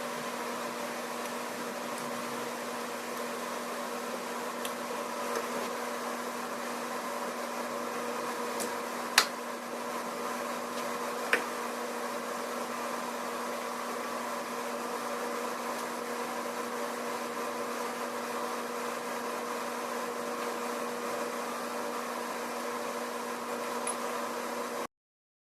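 Steady mechanical hum of a running machine, with two sharp clicks about two seconds apart midway. The hum cuts off abruptly near the end.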